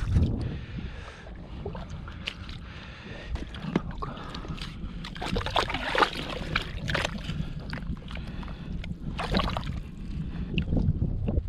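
Gloved hand digging and plunging into wet tidal mud, squelching and sloshing in bursts, heaviest around the middle and again near the end, over a steady low rumble.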